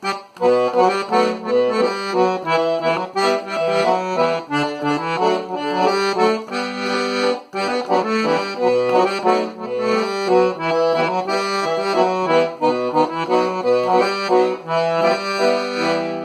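Accordion playing a quick, heavily ornamented melody over bass notes, in the Chiloé (Chilote) style.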